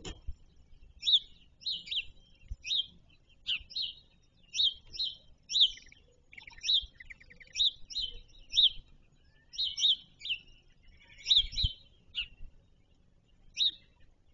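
A small songbird chirping repeatedly: short, high notes that drop in pitch, often in quick pairs, about two a second. A couple of faint low thumps sound under the chirps.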